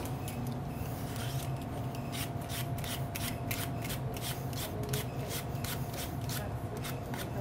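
Green apple being peeled by hand: quick, repeated scraping strokes of the blade stripping off the skin, about three a second.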